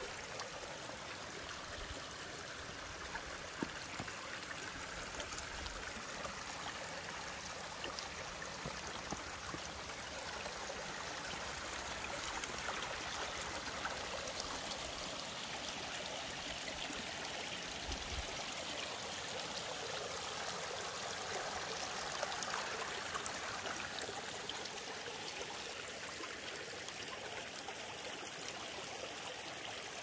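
Shallow stream running over stones and pebbles, a steady babbling rush of water that grows a little louder midway.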